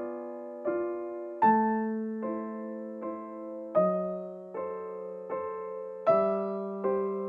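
Background piano music: slow, gentle chords struck roughly once a second, each left to ring and fade.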